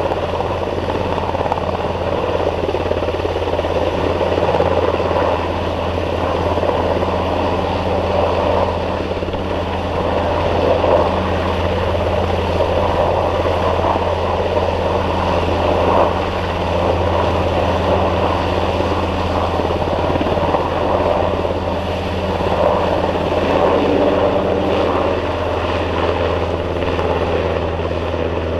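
NH-90 NFH twin-turbine helicopter hovering low and manoeuvring, its rotors and turbines running with a steady, loud beat and whine that does not let up.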